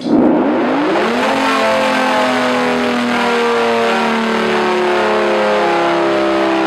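Many tornado warning sirens winding up together, their tones gliding upward at different pitches and overlapping in a loud, clashing wail over a rushing noise. The sound cuts in suddenly after a moment of silence.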